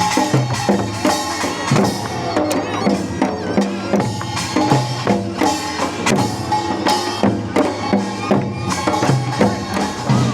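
Upbeat music with a steady, regular drum beat and pitched instrumental parts.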